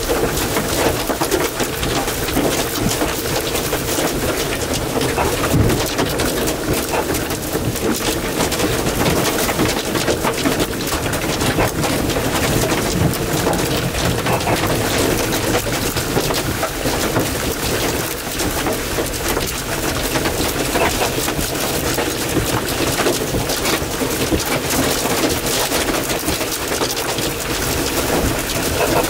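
Steady heavy thunderstorm rain, a dense rush of drops with no break.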